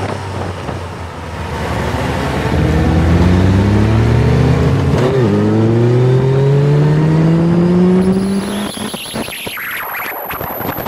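Motorcycle engine heard from on board, pulling hard under acceleration. Its pitch climbs steadily, with a short dip for an upshift about five seconds in. Near the end the engine note falls away and wind buffeting on the microphone takes over.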